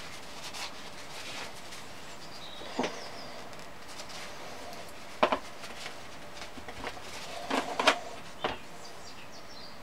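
Clinks and knocks of a steel lathe chuck and its threaded studs being handled and set down on a rubber tray. A few sharp taps come about three, five and eight seconds in, the loudest around five and eight seconds.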